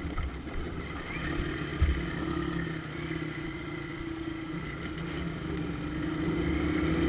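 Shineray motorcycle engine running while being ridden, its note steady and getting louder toward the end. The exhaust pipe has a hole in it, which makes the bike louder.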